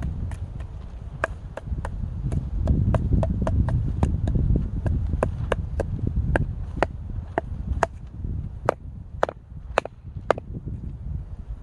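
Firewood being chopped by hand with a blade: a run of sharp, quick knocks, about three a second, that stops shortly before the end, over a steady low rumble.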